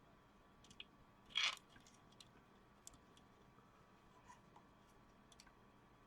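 Faint handling noises from small parts: scattered light clicks and one brief scrape about a second and a half in.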